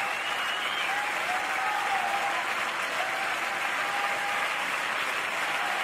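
Large concert crowd applauding and cheering at the end of a song, a steady wash of clapping with voices calling out above it.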